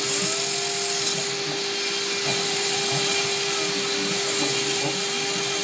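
CNC router spindle running steadily with a constant whine while its bit cuts out a sprocket, over a continuous cutting hiss. The noise dips a little about a second and a half in.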